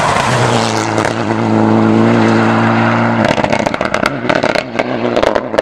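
Mitsubishi Lancer Evolution IX rally car's turbocharged four-cylinder engine pulling at steady revs as it passes. About three seconds in the steady note breaks off and a rapid series of pops and crackles follows as the car pulls away.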